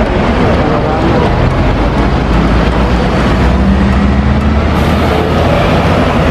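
Road traffic with a double-decker bus's engine running close by as it pulls past, a steady low rumble, its engine hum strongest in the middle.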